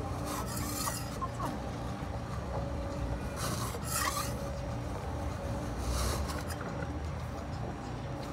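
Metal spatulas scraping across the chilled steel plate of a rolled ('iron') ice cream griddle, in three rasping strokes a couple of seconds apart.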